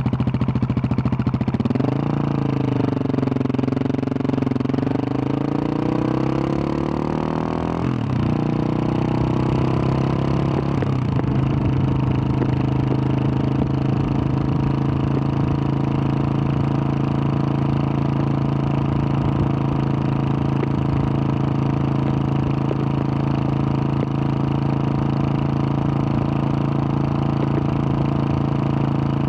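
2021 Husqvarna 701 supermoto's single-cylinder engine, with a Wings exhaust, pulling away out of a slow turn. The revs climb for several seconds, drop sharply at two upshifts about eight and eleven seconds in, then hold steady at cruising speed.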